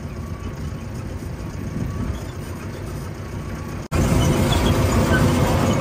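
Tractor engine running steadily as the tractor drives along a field track, heard from the driver's seat. The sound breaks off for an instant about four seconds in and comes back louder.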